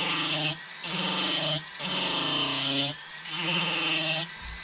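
High-speed rotary carving handpiece grinding wood with a bur, in four passes of about a second each with short breaks between. Its pitch drops as the bur bites, under a hiss of cutting.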